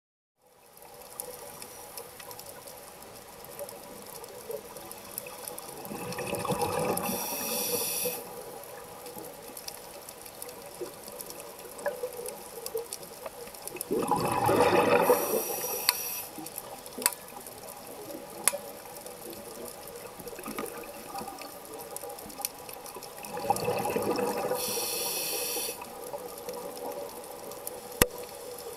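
Scuba diver breathing through a regulator underwater: three bubbling exhalations, roughly every eight to nine seconds, each with a hiss of the regulator. Between breaths there is a faint steady hum and a scatter of small clicks and crackles.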